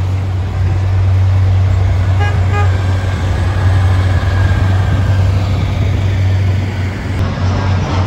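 Car-hauler semi truck driving past with a loud steady low engine drone, and two short horn toots about two seconds in.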